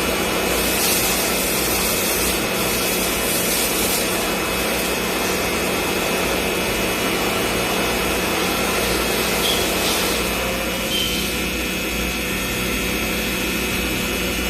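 CNC milling machine cutting a workpiece: a steady spindle and machine drone with fixed tones, under a cutting hiss that swells during the first few seconds and again around ten seconds in.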